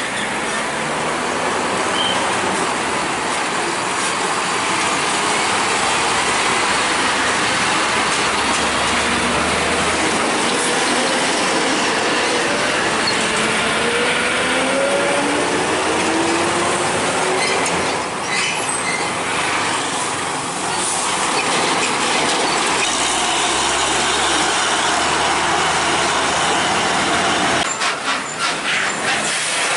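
Heavy diesel trucks crossing a railway level crossing: engines running under load and tyres rattling and knocking over the rails, with one engine note rising about halfway through.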